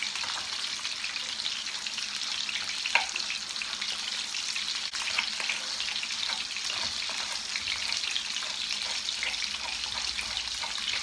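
Panga fish fillets frying in hot oil in a pan: a steady crackling sizzle. A few faint knife taps on a wooden cutting board come through it as green onion is sliced.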